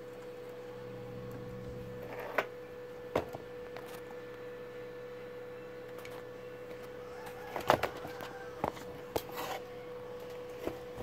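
A steady, single-pitched whine, joined by a few short sharp clicks and knocks, the loudest a cluster a little past the middle.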